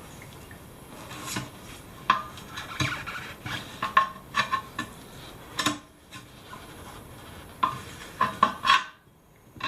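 Tyre levers scraping and clinking against a rusty steel wheel rim while prising off an old tyre whose bead is stuck to the rim. An irregular run of sharp metallic knocks and scrapes, several a second at times, with a short pause near the end.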